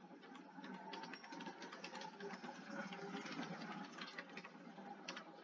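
Faint, rapid clicking of computer keyboard keys as text is typed.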